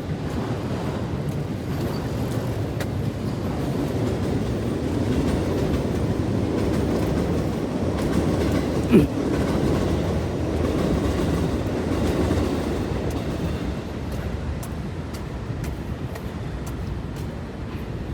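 Train passing, a steady rumble that builds a little and then eases off toward the end, with a brief falling tone about halfway through.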